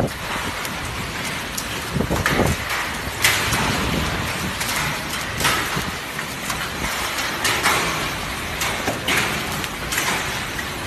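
Squall wind and rain, a steady rushing noise with several louder surges every second or two.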